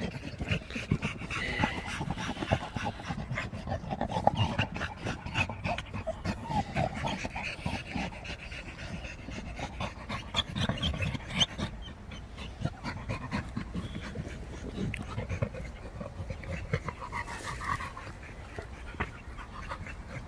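American Pit Bull Terriers panting hard from the exertion of digging at a burrow, with many small scrapes and clicks of dirt and stones throughout.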